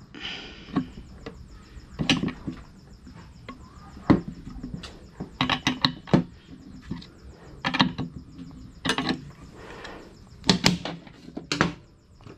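A 15 mm wrench tightening the nut on a metal valve stem while pliers hold the stem: short, sharp metallic clicks and clinks of the tools on the nut and stem, coming in small clusters every second or two.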